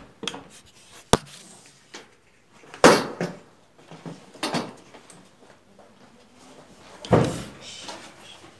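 Knocking, scraping and rustling from hands working inside a cupboard: a sharp click about a second in, then three short scuffling bursts, the loudest near three seconds in and just after seven.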